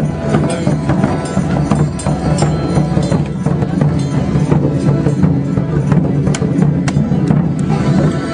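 Traditional band music with drums beating, loud and continuous.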